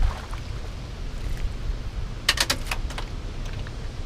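Steady low rumble of wind and water, with a quick cluster of rattling clicks about two seconds in from a spinning reel and tackle as a skipjack herring is reeled up to the boat.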